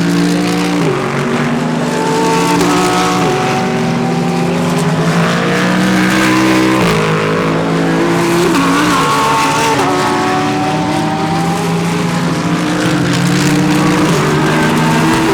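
Several GT3 race cars' engines running hard through a corner, their overlapping notes stepping in pitch with gear changes as the cars pass.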